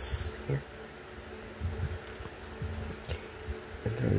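Knockoff Lego-style plastic building bricks being handled and pressed together, with soft knocks and rattles. There is a brief high whine right at the start.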